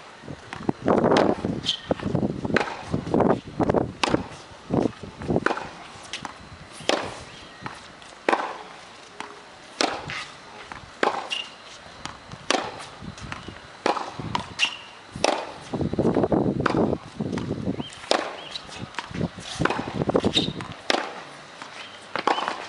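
Tennis racket strikes and ball bounces on a hard court during a rally: sharp pops at irregular intervals, a second or so apart, with shuffling on the court between some strokes.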